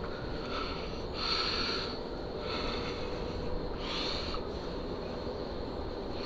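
A rag being rubbed round the steering head bearing races of a Honda CRF450 frame, wiping out old grease, in a few short hissy strokes about a second apart.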